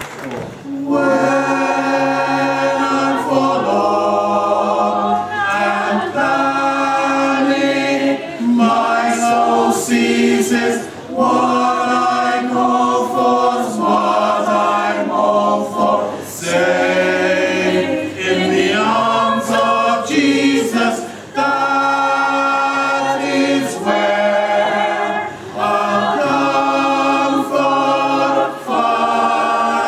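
Mixed choir of men's and women's voices singing a cappella in held chords, phrase after phrase, with short breaks between phrases.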